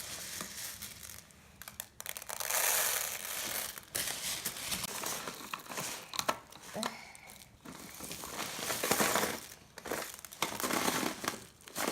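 Plastic toy construction vehicles being pushed and scraped through sand by hand: irregular rustling, scraping and crunching, coming and going in short bursts.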